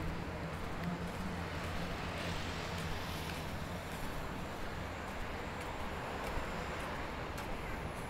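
City street traffic noise: a steady wash of road noise over a low hum.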